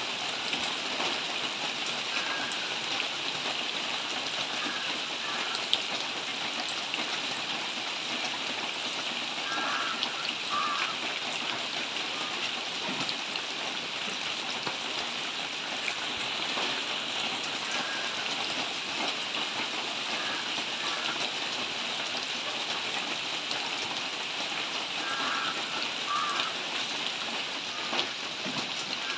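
Steady rain falling on trees and foliage: a constant hiss with scattered drop ticks.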